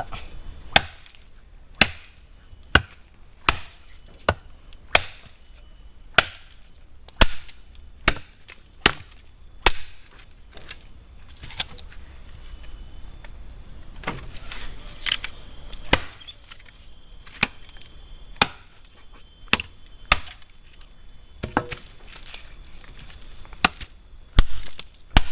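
Wood being chopped into firewood with a blade: sharp chops about one a second, pausing for a few seconds midway. Crickets or other insects trill steadily behind.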